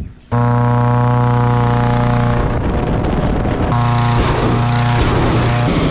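Hot air balloon propane burner firing: a loud steady roar with a strong hum that starts abruptly about a third of a second in. The hum breaks up into rougher noise for about a second near the middle and again just before the end.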